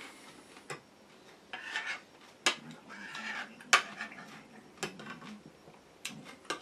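A fork clinking and scraping against a plate while eating salad: about half a dozen sharp clinks with short stretches of scraping between them.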